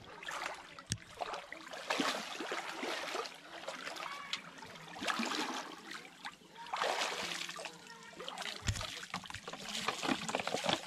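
Muddy pond water sloshing and splashing in surges every second or two as a person wades waist-deep and gropes along the bottom by hand. Near the end comes a quick patter of drips as water and mud fall from his lifted hands.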